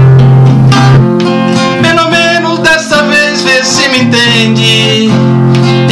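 Two acoustic guitars, one steel-string and one nylon-string, strumming a sertanejo ballad accompaniment, with a voice singing the melody from about two seconds in.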